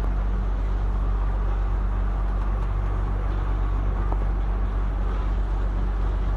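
Steady low drone of a vehicle's engine, with a hiss of road or traffic noise over it.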